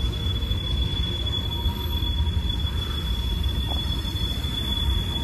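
Covered hopper cars of a Norfolk Southern manifest freight train rolling past: a steady low rumble with a thin, steady high-pitched wheel squeal over it.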